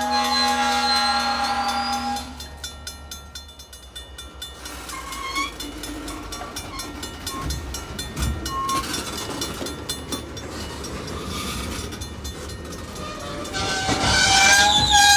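Locomotive horn sounding a steady chord for about two seconds, then freight tank cars rolling past with rail and wheel noise and a few short squeals. The horn sounds again, louder, near the end.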